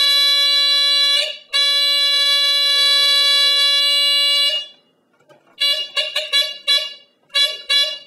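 Sunbeam Centurion 45-3D smoke alarm's mechanical horn sounding on test: a loud, buzzy steady tone, first a short blast, then a longer one of about three seconds, then several short blasts near the end. The horn gives a continuous tone rather than the pulsing on and off the manual describes.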